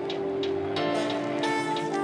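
Background music: held notes that change about a second in, over a light, steady beat.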